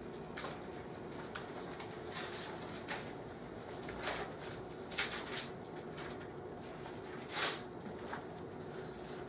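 Thin Bible pages being leafed through on a wooden lectern: a string of short papery rustles and flicks, the loudest toward the end.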